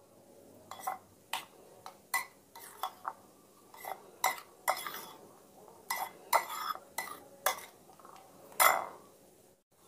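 Metal spoon stirring thick sweet soy sauce with chopped chillies in a ceramic bowl, clinking against the bowl's sides a dozen or so times at an uneven pace.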